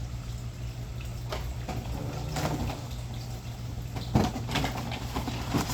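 Scattered clicks, knocks and rustles from handling plastic and cardboard toy-car packaging, the sharpest knock a little past four seconds in, over a steady low hum.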